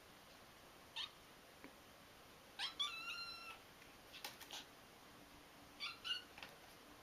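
Kitten mewing: several short, high-pitched mews, the longest and loudest about three seconds in, with a few light clicks in between.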